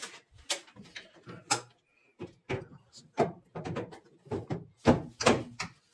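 Irregular knocks, clacks and rattles from the plastic cabinet panels of a Voltas fully automatic top-load washing machine being handled and fitted back on by hand.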